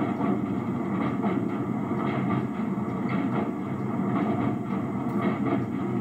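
Diesel switch engine running steadily as it rolls along the track, with light, irregular clicks of the wheels over rail joints.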